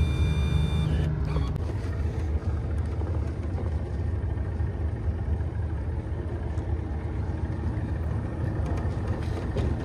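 Boat motor running steadily at low speed, a low rumble. Background music fades out about a second in.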